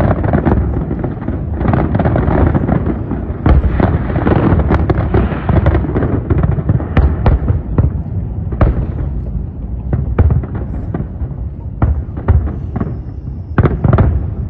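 Aerial fireworks display bursting continuously: rapid crackling and bangs over a low rumble, densest in the first half, then thinning to separate sharp bangs.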